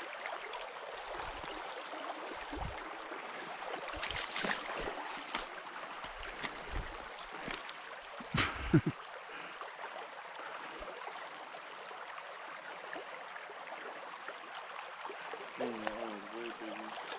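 Small mountain creek running steadily over gravel, with scattered knocks and bumps and one sharp thump about eight and a half seconds in.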